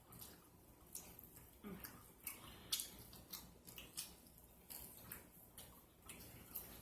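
Close-up wet chewing and lip-smacking of someone eating chicken wings: an irregular string of sharp, wet clicks.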